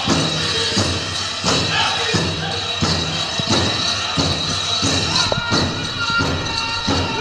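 Powwow drum struck in a steady beat, about one and a half beats a second, with the drum group singing over it and jingling like dance bells.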